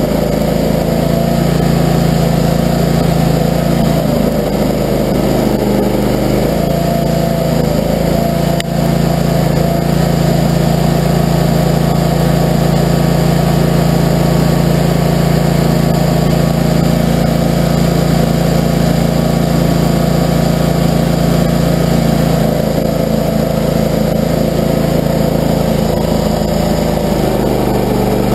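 Barreto tracked stump grinder's gasoline engine running hard and steadily, its note shifting a few times as the load on the cutter wheel changes.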